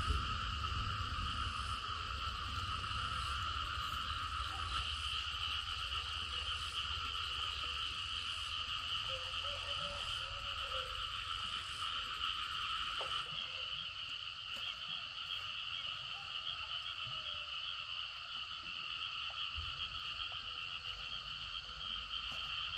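A dense chorus of frogs calling without a break, heard as a steady high buzzing trill.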